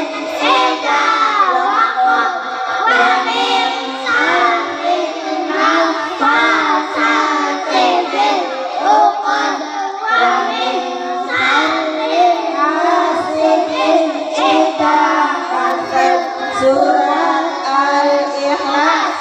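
A group of young boys chanting short Quranic surahs in unison through microphones, a steady, melodic recitation with no pauses.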